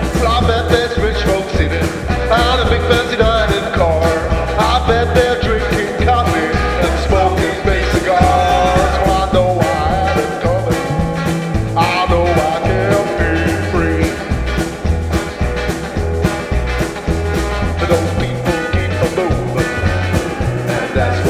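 Rock band playing live: electric guitars, electric bass and drum kit keeping a steady beat, with a male lead vocal.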